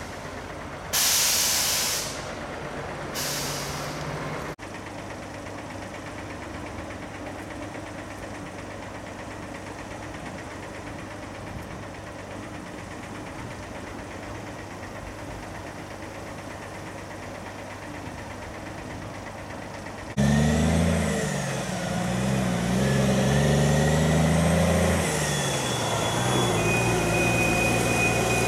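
Log truck's air brakes hissing twice, then a diesel truck engine idling steadily. About two-thirds of the way in, a loaded off-highway log truck's diesel engine starts loud as it pulls away, its pitch rising and falling through gear changes, with thin high squeals over it.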